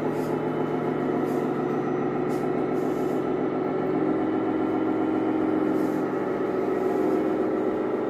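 Truck engine sound, a steady diesel running note. Its pitch shifts a little about four seconds in.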